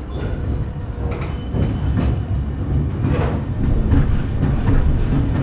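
Train in motion, heard from inside the carriage: a steady low rumble with scattered clicks and knocks from the wheels and the carriage.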